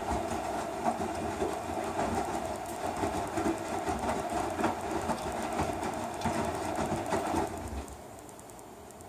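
Electrolux Eco Turbo TRW12 top-loading washing machine running on its heavy cycle: a steady rumble with fast, irregular clicking and knocking. It drops abruptly to a much quieter hum about three quarters of the way through.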